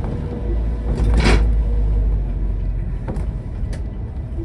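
Car being driven, heard from inside the cabin: a steady low rumble, with a short rough clatter about a second in and a couple of light knocks near the end.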